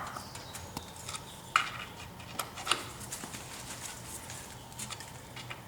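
Scattered light metallic clicks and clinks of a wrench working on a tight plug on a Muncie four-speed transmission case, with a couple of sharper knocks.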